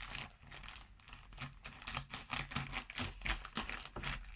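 Plastic toy packaging being handled and opened by hand: a run of irregular light clicks and crinkles.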